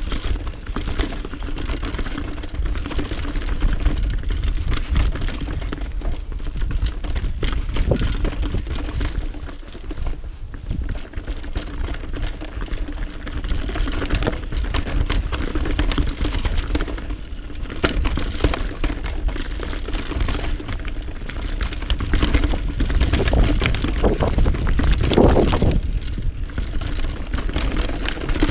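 Mountain bike riding fast down a rough dirt trail: knobby tyres rolling and crunching over roots and stones, with a constant irregular clatter of the bike's frame, chain and parts being shaken, over a steady low rumble.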